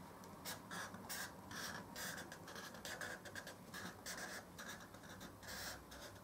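Marker pen drawing a zigzag line on paper, heard faintly as a quick series of short scratchy strokes, about three a second.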